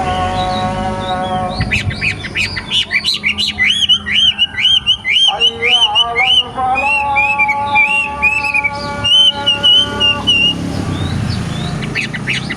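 Young wambi songbird singing a long run of quick, hooked whistled notes, with a short burst of notes near the end. Steady held tones sound beneath the song at the start and again midway.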